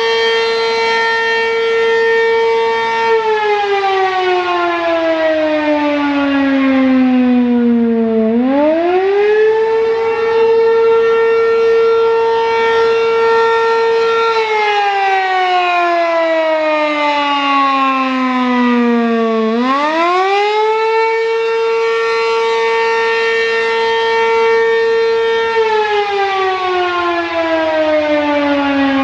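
American Signal RM-127 Penetrator, a single-tone three-phase mechanical siren, sounding the attack signal as a very loud wail. The pitch holds high for about five seconds, slides down over about five seconds, then sweeps back up within a second, repeating about every eleven seconds.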